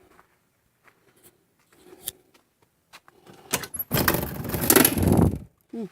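A few small clicks at a door, then a door being forced open with its bottom edge scraping loudly along the ground for about two seconds: the door is dragging on the ground.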